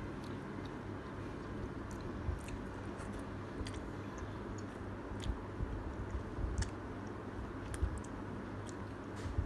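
Mouth sounds of a person eating thick udon noodles in pork-bone broth: chewing with scattered small wet clicks as noodles are drawn into the mouth.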